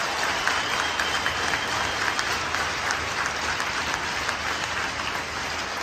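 Arena crowd applauding, many hands clapping at once, a steady clatter that slowly eases off.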